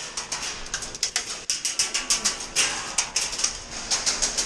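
Airsoft gunfire in a warehouse game: sharp, irregular snaps of shots and BB hits, several a second throughout, with short echoes.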